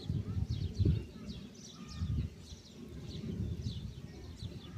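Birds chirping over and over in short, falling chirps, several overlapping, over a low uneven rumble that is loudest about a second in.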